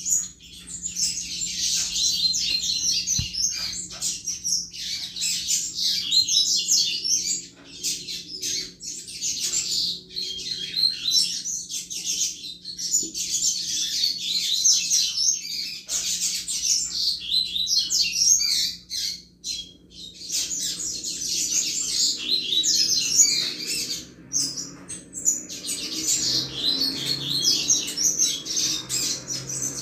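Double-collared seedeater (coleiro) singing the fast, twittering 'chuva' song type: long runs of rapid high notes, broken by a few short pauses.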